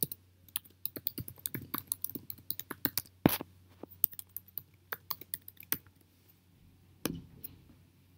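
Typing on a computer keyboard: a quick, uneven run of keystrokes entering a login email and password, stopping after about six seconds. About a second later comes one louder click, as the login is submitted.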